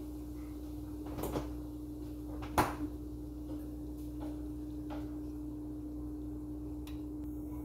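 A few short knocks and clicks of kitchen handling, the sharpest about two and a half seconds in, over a steady low hum.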